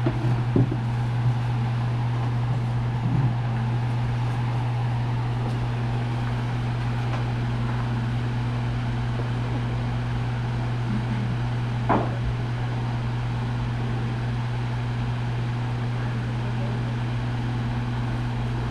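Steady low mechanical hum, with a few light knocks in the first few seconds and a single sharp click about twelve seconds in.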